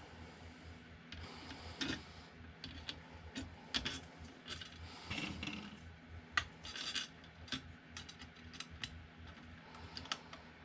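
Irregular clicks, taps and scrapes of small metal and plastic parts being handled and fitted while assembling a 3D printer's bed.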